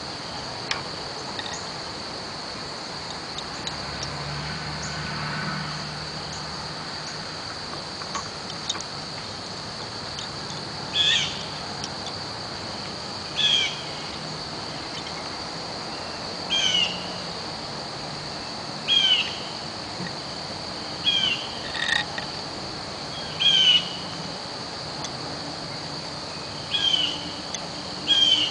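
A steady, high-pitched insect drone like crickets, and from about eleven seconds in a bird repeating a short falling call every two to three seconds, the loudest sound. A few faint clicks of wooden lace bobbins being handled.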